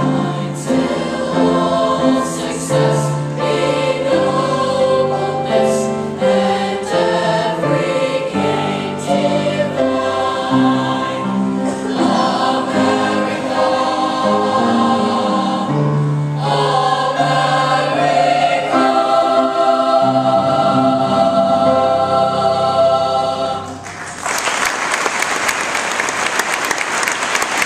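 A youth choir singing in parts. The song ends near the end and the audience breaks into applause.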